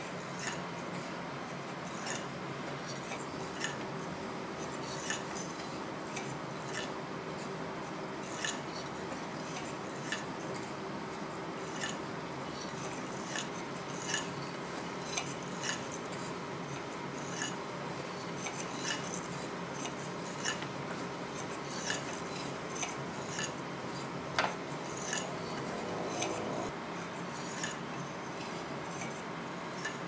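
A wooden cam-driven kinetic wave machine running. Its slats and cam followers clack lightly and unevenly, roughly once or twice a second, over a steady whirr from the turning shaft and gear, with one sharper clack about three-quarters of the way through.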